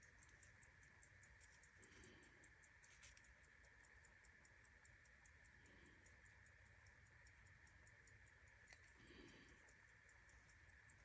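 Faint, rapid, even ticking of a Swiss pocket watch's running movement, several ticks a second.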